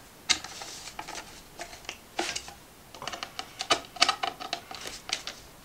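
Screwdriver turning cam lock fittings to lock a pine drawer side to the drawer front: a run of small irregular clicks and taps, busiest in the second half.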